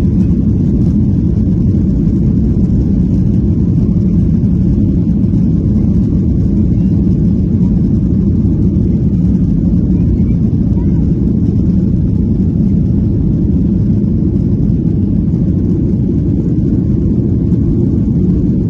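Steady low rumble inside the cabin of a Boeing 737-800 as it rolls along the ground, its CFM56 engines running at an even, low thrust with no spool-up.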